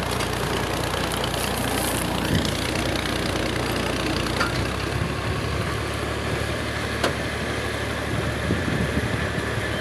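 Engine of a borewell boring machine running steadily at a constant speed, with a low hum and a few faint clicks.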